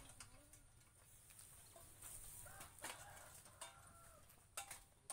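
Faint chickens clucking, with a few sharp clinks of steel tent-frame pipes being handled, the loudest about three and four and a half seconds in.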